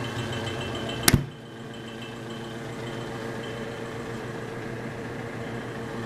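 A late-1920s Frigidaire refrigerator's door shutting with a single sharp clunk about a second in. Its single-cylinder compressor hums steadily underneath, working hard under load while the cabinet cools down.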